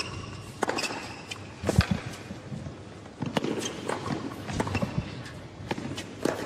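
Tennis rally on a hard court: the racket striking the ball and the ball bouncing, knocks coming about every second, with footsteps and shoe scuffs between. The loudest knock comes about two seconds in.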